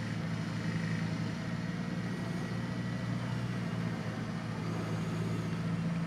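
Engine of a small 4x4 off-roader running steadily at low revs in the mud, an even hum that barely changes in pitch.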